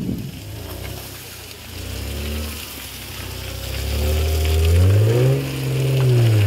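Old Toyota Land Cruiser 4x4's engine revving, the revs rising and falling twice and highest about two-thirds of the way in before dropping back.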